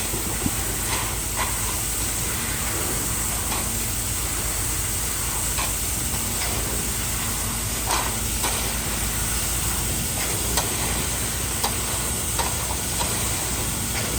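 A machine engine runs steadily on a concrete job site, with a constant low hum and a hissing noise, and scattered light clicks and taps of work over it.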